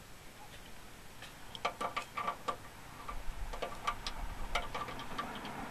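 A hand ratchet clicking in two quick runs of ticks, as it drives the T30 Torx bolts that hold the door retaining strap bracket to the half door. The first run comes about a second and a half in, the second about a second later and a little longer.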